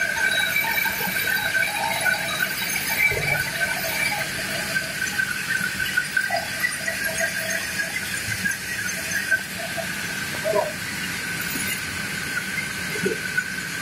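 Sawmill band saw running free, not cutting, with a steady high whine. A few knocks as a teak log is levered on the log carriage, the clearest about three seconds in.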